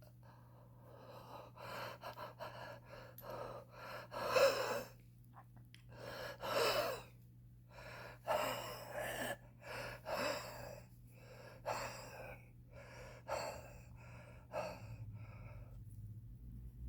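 A smoker's labored, wheezing, gasping breaths, about a dozen irregular breaths. The strongest come about four and a half and six and a half seconds in.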